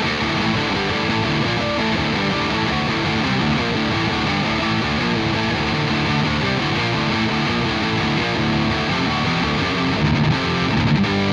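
Harley Benton Fusion-III HH electric guitar played on its neck humbucker with high-gain distortion: a steady stream of riffing notes, with a few louder stabs near the end.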